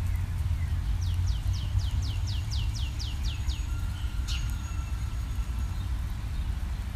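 A steady low rumble underneath. About a second in comes a quick run of about ten high, falling chirps, then a sharp click followed by a thin, steady ringing tone that fades out within two seconds.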